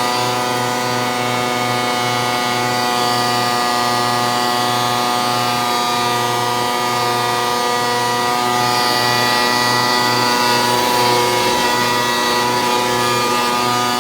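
Dirt Devil Featherlite upright vacuum cleaner running steadily: a constant motor hum with a low note that pulses a few times a second.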